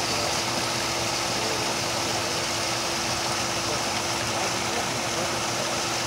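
Small garden waterfall pouring steadily into a koi pond, an even rush of falling water, with a steady hum under it.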